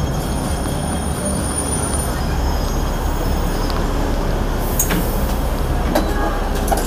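Hong Kong double-decker electric tram running along the street rails with a steady low rumble. A few sharp clicks or knocks come about five seconds in, at six seconds, and near the end.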